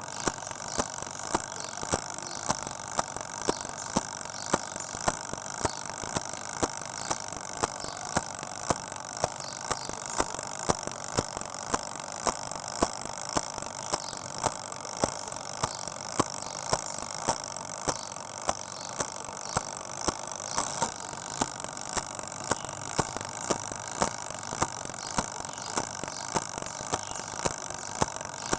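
Countdown timer ticking: a fast, even run of sharp ticks over a steady hiss, unchanged throughout.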